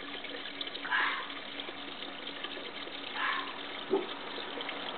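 A fox screaming: two short, loud screams about two seconds apart, followed by a brief lower-pitched sound, over a steady background hiss.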